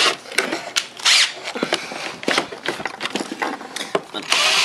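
Ryobi One+ 18-volt cordless drill/driver backing wood screws out of a table leg's corner block in short runs, with sharp clicks and knocks from the bit and the wood.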